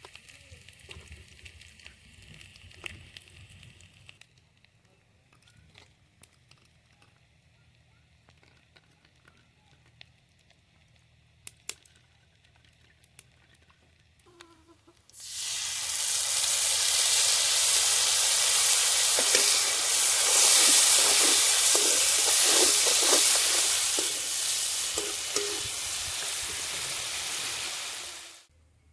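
Food sizzling loudly in hot oil in a cooking pan. The sizzle starts suddenly about halfway through and cuts off just before the end.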